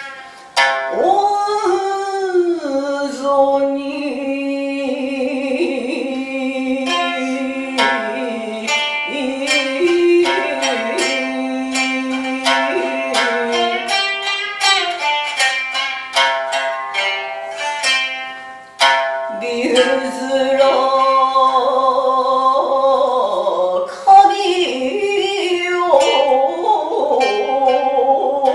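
Biwa, the Japanese lute, struck with a plectrum: a fast run of plucked notes through the middle, framed near the start and again near the end by long held, wavering sung tones.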